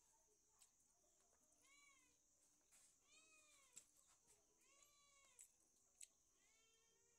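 A cat meowing repeatedly: about four drawn-out meows, each rising then falling in pitch, with a steady high hiss and a few faint clicks behind.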